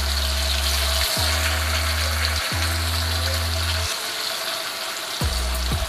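Masala-marinated fish pieces frying in hot oil, a steady sizzle as more pieces are laid into the pan. Background music with long low notes plays over it for the first few seconds.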